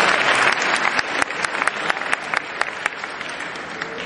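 Audience applauding. The dense clapping thins out into scattered single claps and dies away.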